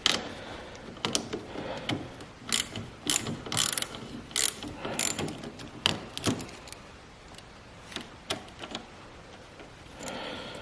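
Socket ratchet wrench clicking in short bursts while loosening a car battery terminal nut, the clicks thinning out over the last few seconds.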